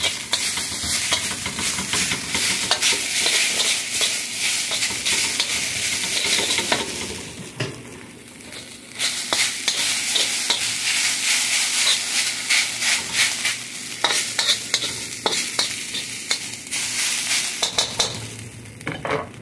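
Rice and bean sprouts sizzling in a hand-hammered wok while a metal spatula scrapes and tosses them against the pan in quick, uneven strokes. The sizzle and scraping dip for about a second around eight seconds in, then pick up again.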